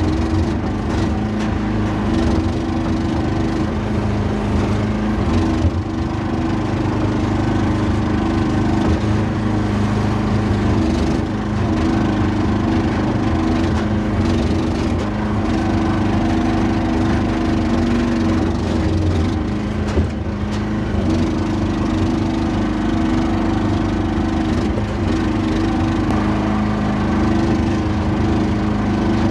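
Small excavator's diesel engine running steadily under load, with a couple of sharp knocks along the way.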